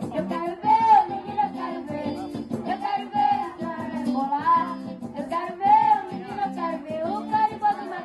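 Live carimbó music from a children's ensemble: a recorder-and-voice melody over guitar, keyboard, hand drum and shaken maracas.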